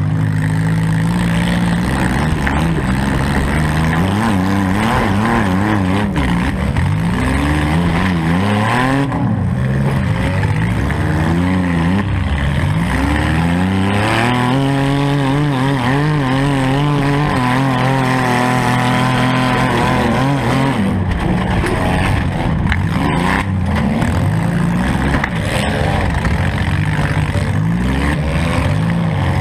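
Modified four-cylinder demolition derby car engine revving up and down under hard throttle changes, held at high revs for several seconds midway.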